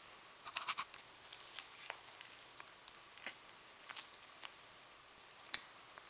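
Shih tzu puppy moving about on a microfibre sofa: faint, scattered light scratches and rustles of its paws and fur on the fabric, with a sharper click near the end.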